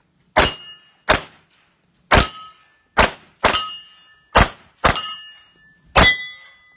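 A string of .22 rimfire pistol shots, eight sharp cracks at an uneven pace of about one a second, most of them followed by the short metallic ring of a steel target plate being hit.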